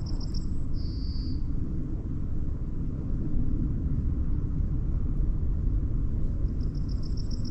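Wind buffeting the microphone, a steady low rumble that rises and falls slightly. A small bird sings twice in the background, once at the start and again near the end, each time a quick run of high notes ending in a longer held note.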